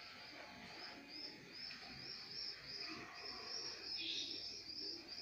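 An animal's high, short chirps repeated steadily, about two or three a second.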